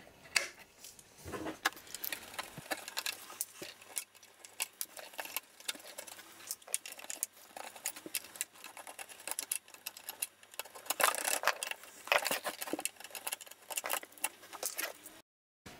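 A small screwdriver working tiny slotted screws out of a metal avionics module: irregular light clicks and scrapes of the blade and screws, stopping abruptly near the end.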